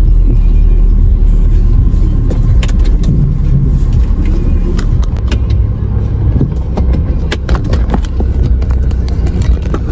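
Car running and moving slowly, heard from inside the cabin: a heavy low rumble throughout, with scattered clicks and knocks from a few seconds in.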